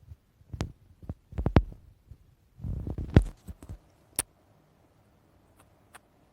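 Stomach growling: a run of short gurgles and pops, the loudest about one and a half and three seconds in, stopping a little after four seconds.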